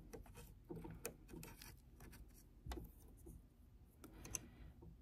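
Faint irregular scratching and light ticks of a small tipped cleaning brush scraping lint from the metal bobbin area and feed dogs of a Janome Magnolia 7330 sewing machine.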